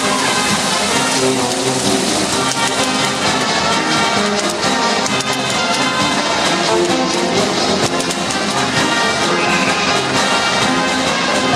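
Marinera dance music with brass instruments, playing steadily and loudly.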